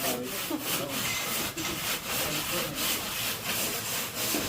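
Hand saw cutting through a prefabricated Litepanel wall panel, finishing a cut, in steady back-and-forth strokes about two or three a second.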